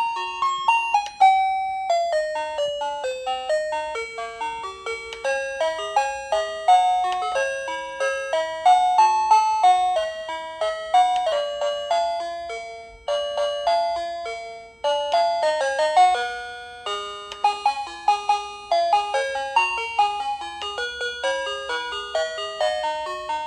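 Plug-in wireless doorbell receiver playing its built-in melody chimes: a quick tune of short ringing notes, with two brief breaks near the middle as it runs through one chime tune after another of its 32.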